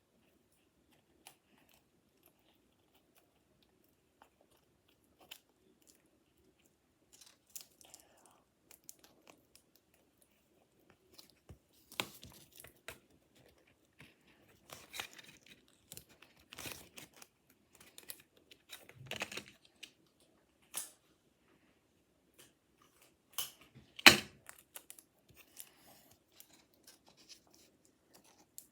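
Paper and cardboard being handled by hand: irregular crinkling and rustling with scattered clicks, busier in the second half, and one sharp knock about 24 seconds in.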